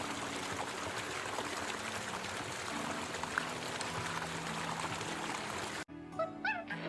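Steady rush of running water that cuts off abruptly about six seconds in, followed by a few short, high chirping calls.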